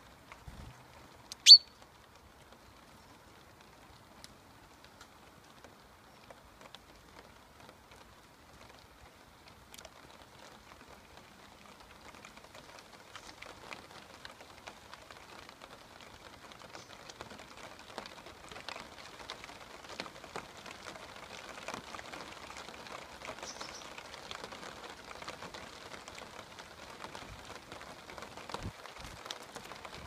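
Rain pattering, a steady hiss of many light drops that grows heavier about a third of the way in. Near the start there is one loud, brief, high chirp.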